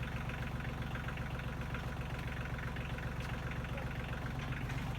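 Tractor engine idling steadily, with an even, fast, regular pulse.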